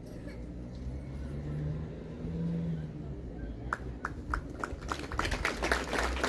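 A low steady engine hum, briefly louder a couple of seconds in. About four seconds in, scattered hand claps start and quickly thicken into a crowd applauding.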